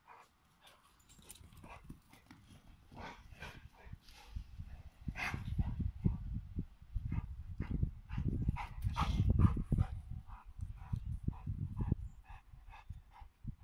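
An American pit bull terrier and a boxer playing, running hard over grass: a quick run of dull thuds from their paws, loudest in the middle, with short dog sounds among them.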